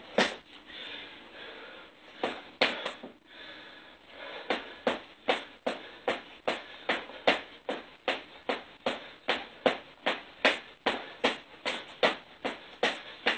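A person's feet landing and scuffing on dirt ground during burpees and jumping jacks: a few scattered thuds, then from about four seconds in a steady run of sharp landings about two and a half a second.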